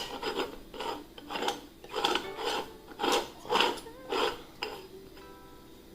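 Repeated short rasping, scraping strokes, about two a second, stopping shortly before the end.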